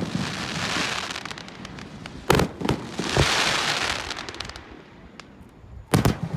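Aerial fireworks display: sharp shell bursts about two seconds in and again near the end, with a loud hissing crackle between them.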